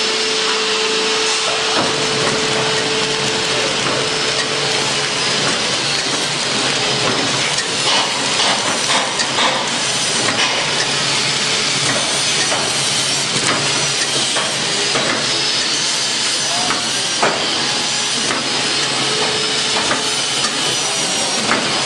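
Flow-wrap packing machine running as it wraps stacks of A4 paper in film: a steady hiss with scattered clicks and knocks from the mechanism, and a thin steady tone during the first few seconds.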